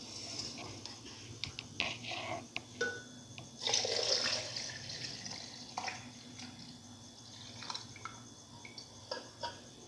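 Milk poured into a glass blender jar, splashing and dripping faintly, with scattered small clicks. The splashing is a little louder about four seconds in.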